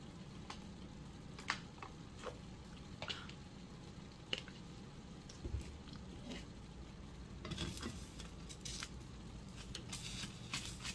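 Eggs frying in a pan, a faint sizzle with scattered small pops. A wooden spatula clicks and scrapes against the pan in a short flurry about seven to nine seconds in.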